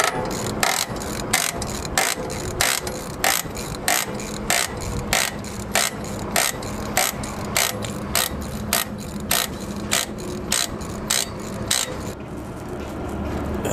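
Automatic brake slack adjuster on a SAF trailer axle being backed off with a ratchet wrench on its adjusting bolt: an even series of sharp ratcheting clicks, about three every two seconds, that stops near the end.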